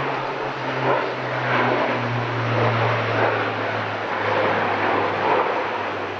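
Airbus A400M's four turboprop engines droning, a low propeller hum sliding slowly down in pitch over a broad rushing noise.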